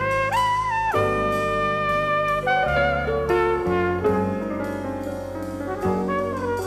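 Flugelhorn playing a jazz ballad melody in long held notes, backed by piano, double bass and drums; the melody steps up to a higher note about a third of a second in.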